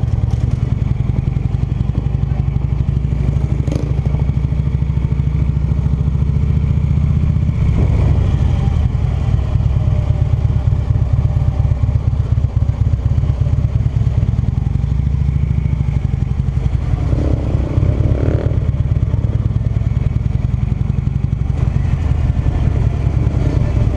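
Cruiser motorcycle engine running steadily at low speed, heard from the rider's seat, with small changes in engine speed as the bike rolls along.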